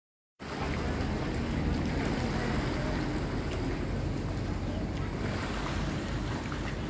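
Steady rushing noise of wind and flowing river water, heaviest in the low end.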